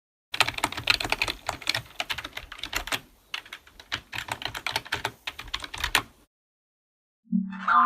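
Computer keyboard typing: fast runs of key clicks for about six seconds with a short pause midway, stopping abruptly. Near the end a short electronic tone begins.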